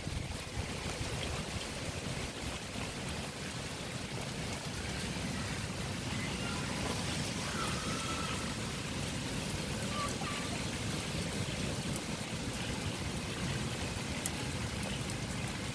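Heavy rain pouring down steadily, an even rushing hiss of water.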